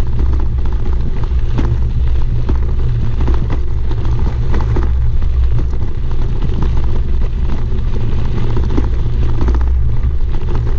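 Bicycle tyres rolling over a gravel road, heard through a bike-mounted camera: a loud, steady low rumble with a constant crackle of gravel and small rattles.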